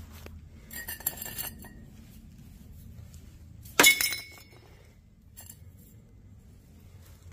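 Steel exhaust pipe sections clinking against each other and the concrete floor as they are handled: a few light clinks about a second in, then one loud clank with a short ring just before four seconds.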